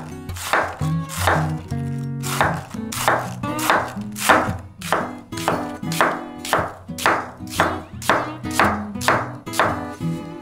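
A kitchen knife slicing thin through cabbage and then red onion down onto a wooden cutting board: a rapid, regular run of crisp cuts, about three a second, over background music.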